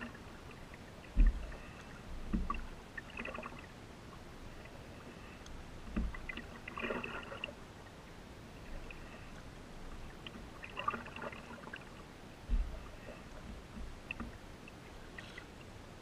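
Canoe paddling: the paddle swishes and splashes through the water every few seconds, with occasional low knocks of the paddle against the canoe's hull. The loudest knock comes about a second in.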